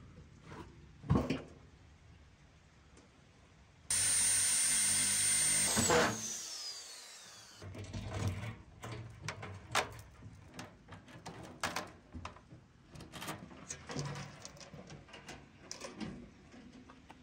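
A high-pitched power tool runs for about two seconds and then winds down, its whine falling, followed by a string of scattered knocks and clicks.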